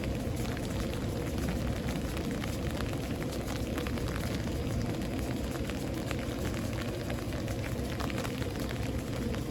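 Steady rain in a thunderstorm, with the sharp ticks of single drops striking nearby surfaces over a constant low rumble.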